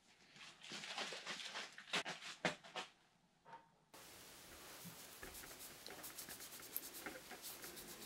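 Rustling and rubbing as a cloth is handled and wiped, with a few sharper scrapes, for about three seconds. Then, under a steady faint hiss, come light small clicks and taps of fingers working at a plastic brake lever.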